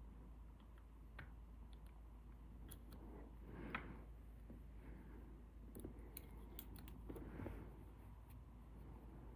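Faint scattered metallic clicks and scrapes of lock picks working in the keyway of an ASSA Desmo lock, with two brief louder rasps about four seconds in and near the end.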